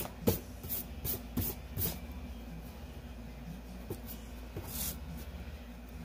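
Rubber eraser rubbed back and forth on drawing paper, about five quick strokes in the first two seconds, erasing leftover pencil lines, then a hand brushing once across the paper.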